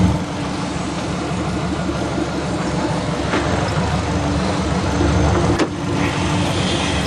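Subaru Legacy's 2.5-litre boxer engine idling steadily, running smoothly.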